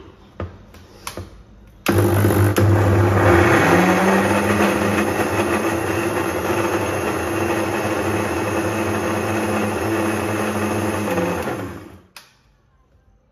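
Electric mixer-grinder with a steel jar grinding onions, green and red chillies, ginger and garlic into a paste. The motor starts about two seconds in, its hum rising in pitch as it comes up to speed, runs steadily for about eight seconds, then winds down and stops near the end. A few light clicks come before it starts.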